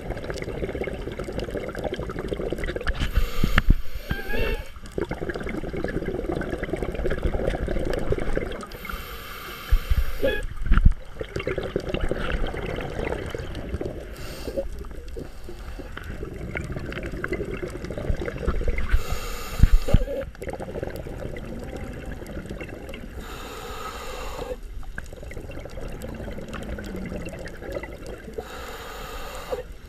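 A scuba diver breathing through a regulator underwater: exhaled bubbles gurgling and rumbling, with a hissing breath several times, a few seconds apart.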